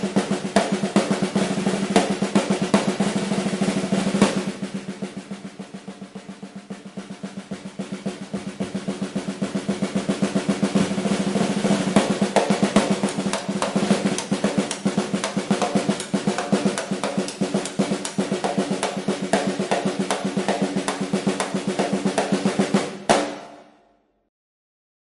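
A fast drum roll of rapid, even strokes with a steady ring underneath. It is loud, drops much quieter about four seconds in, then builds back up over several seconds. It ends with a strong accented hit and dies away quickly near the end.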